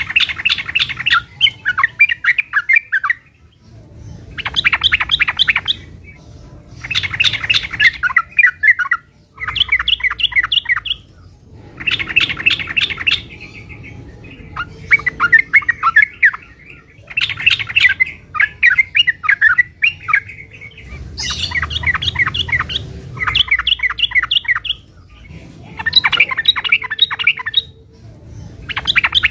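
Yellow-vented bulbul (trucukan) in full song: bursts of rapid, chattering notes a couple of seconds long, repeated over and over with short pauses between them.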